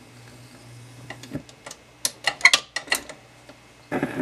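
RCA RP190 automatic 45 rpm record changer cycling between records: a quick run of mechanical clicks and clatter, then a thump near the end as the changer completes its cycle, over a low steady hum.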